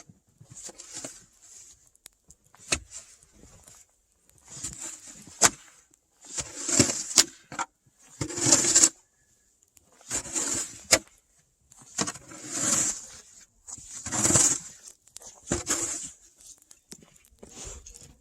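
Repeated crunching, scraping strokes in snow, about one every one to two seconds, with a few sharp clicks among them.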